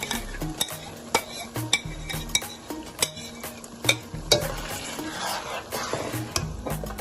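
A spoon stirring a tomato and pepper stew base in a pot, knocking against the pot many times, while the mixture sizzles as it fries in hot palm oil, the sizzle growing louder over the last couple of seconds.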